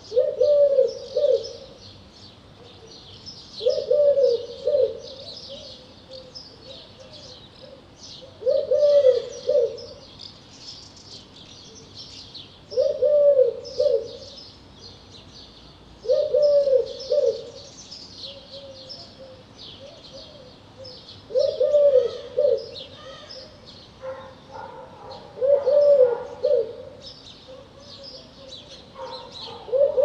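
Eurasian collared dove singing its three-note coo phrase, repeated about every four seconds. Many small birds chirp high above it.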